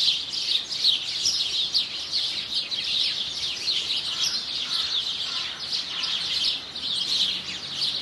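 A chorus of small songbirds chirping, with many quick, high, downward-slurred calls overlapping without a break.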